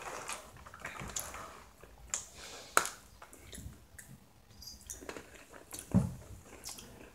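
Quiet chewing and mouth sounds from people eating thick iced cookies. Scattered small clicks run through it, with a sharp click about three seconds in and a short low sound near six seconds.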